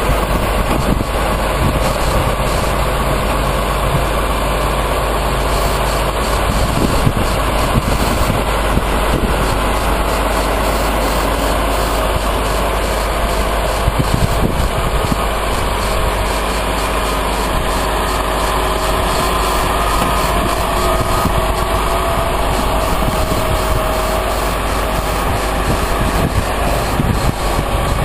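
Caterpillar AP1055D asphalt paver's diesel engine running steadily at idle, a loud, even rumble.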